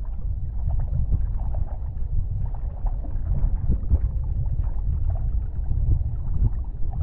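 Wind buffeting a rig-mounted camera microphone on a windfoil board in flight: a loud, gusty low rumble that rises and falls, with light water splashes on top.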